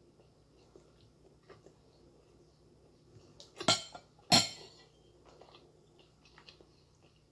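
Metal spoon and fork clinking and scraping against a ceramic plate while cutting food: two loud sharp clinks a little over half a second apart near the middle, with faint small clicks around them.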